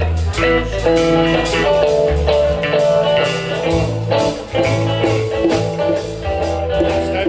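Rock band playing an instrumental passage: guitar notes over a heavy bass line and steady drums, the full band coming in right at the start.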